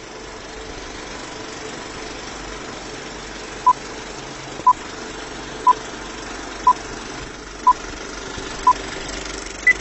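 Six short electronic beeps, one a second, then a single higher beep, like a countdown timer, over a steady engine-like rumble.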